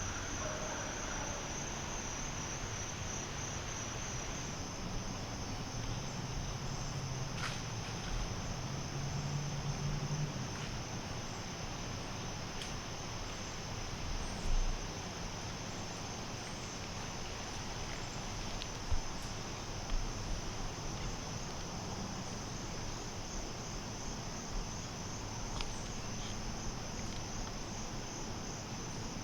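Evening chorus of crickets: a steady high-pitched trill that never lets up. A few faint clicks and soft knocks sound over it.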